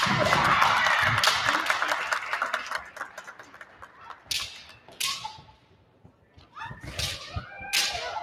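Kendo hall ambience: high, drawn-out kiai shouts and a clatter of sharp strikes, dying down after about three seconds to a few separate sharp cracks and a brief lull.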